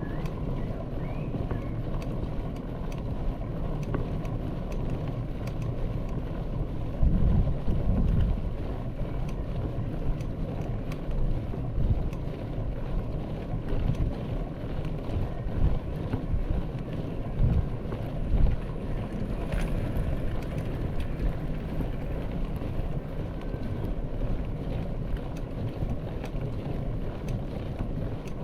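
Wind buffeting the camera microphone, a steady low rumble with stronger gusts about seven seconds in and a few more later.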